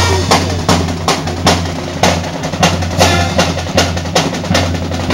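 Music with a steady drum beat, about two to three hits a second, over a sustained bass note.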